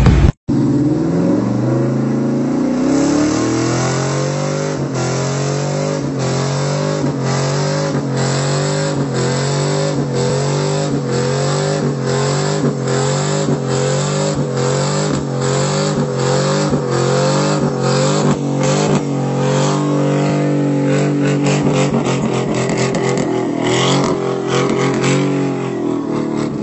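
Pickup truck engine held at high revs as its rear wheels spin in mud under the load of a boat trailer. The note rises just after the start, holds with an even pulsing about twice a second, and starts to wind down near the end.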